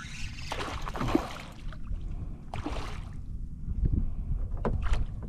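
Water splashing and sloshing around a fishing kayak in several short bursts, the last two sharp ones near the end, over a steady low wind rumble on the microphone.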